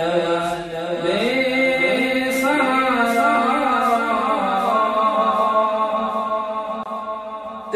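Background vocal music in a chanting style: a single voice holding long notes that slide in pitch, over a faint regular beat.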